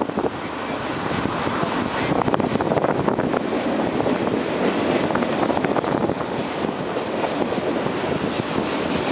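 CN freight cars (autoracks and tank cars) rolling past on steel rails: a steady, dense rolling noise from the wheels, broken by many quick clicks.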